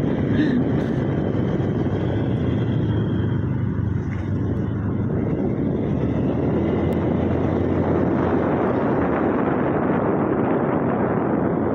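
Motorcycle ridden at a steady pace, heard from the rider's seat: a constant rush of wind and road noise with the small engine humming steadily underneath.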